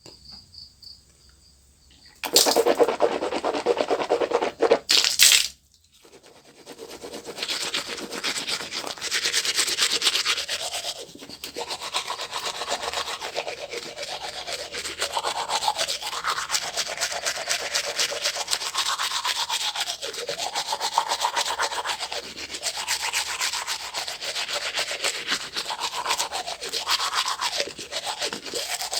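Manual toothbrush scrubbing teeth in quick back-and-forth strokes, the bristle noise rising and falling in tone as the brush moves around the mouth. A few seconds in comes a louder rushing noise of about three seconds, cutting off sharply before the steady brushing sets in.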